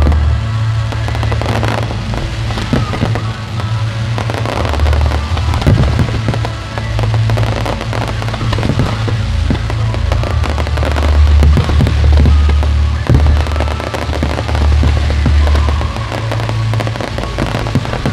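Large fireworks display: aerial shells bursting one after another with bangs and crackling, over music with a heavy, steady bass.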